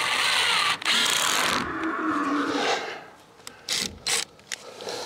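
Cordless drill driving screws through plywood into a wooden frame, in two short runs with a brief break about a second in, then trailing off. A few sharp clicks follow near the end.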